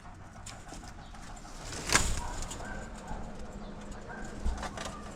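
Pigeons cooing and calling, with one sharp knock about two seconds in and a few lighter clicks near the end.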